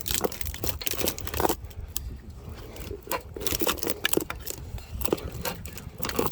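Irregular knocks, scrapes and rustling as the strapped owl box is handled and shifted against the tree.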